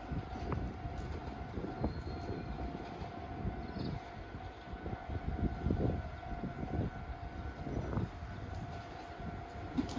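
A train running past a level crossing, with a steady low rumble and uneven knocks of the wheels. A steady ringing tone sounds over it, the crossing's warning alarm.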